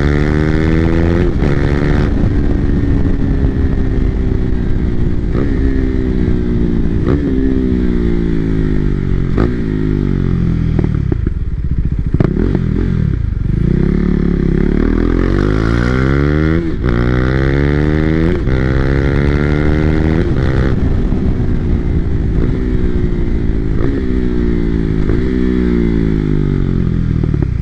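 2020 KTM RC390's single-cylinder engine through an Austin Racing slip-on exhaust, pulling through the gears: its pitch climbs and drops back at each upshift. Near the middle it falls away as the rider eases off, then climbs again through more upshifts.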